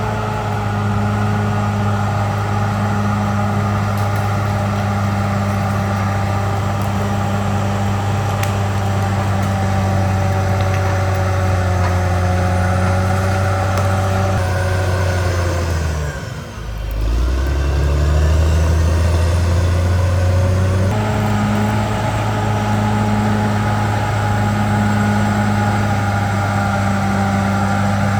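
Caterpillar D6R XL bulldozer's diesel engine running steadily under load. About sixteen seconds in, the engine note sags sharply and briefly, then climbs back up as the revs recover.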